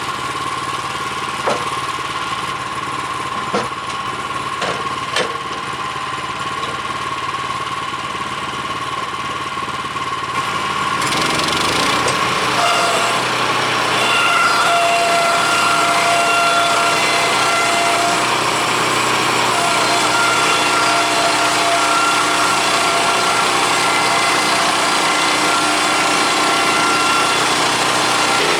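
Small engine of a portable bandsaw sawmill running steadily, with a few knocks in the first few seconds. About 11 seconds in the sound turns louder and fuller, with a whine that comes and goes.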